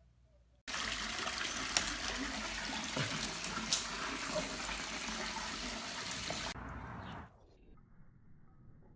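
Water rushing, starting abruptly under a second in and running steadily for about six seconds before cutting off.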